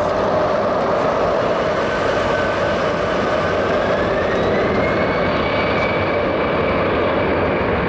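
Airbus A319-100 jet engines at takeoff power on the takeoff roll: a steady loud rush of jet noise, with a thin whine that rises in pitch a few seconds in and then holds.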